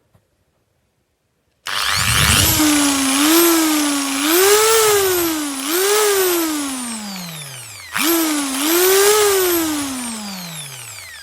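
Einhell TH-ID 1000 E corded hammer drill running with no load. It starts about two seconds in, and its motor speed rises and falls several times as the variable-speed trigger is squeezed and eased. It is briefly let off and squeezed again, then released and winds down to a stop.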